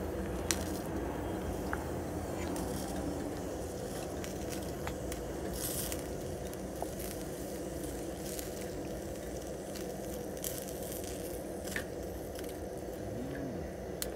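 Portable gas burner running steadily under a pot of water coming to the boil, a low even rumble with scattered small clicks and crackles.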